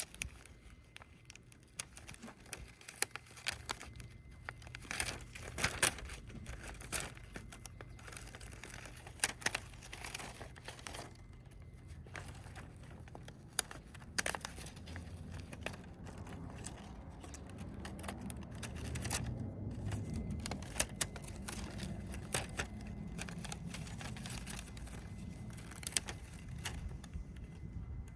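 Irregular crinkling and sharp clicks of something being handled, over a low hum that swells in the second half.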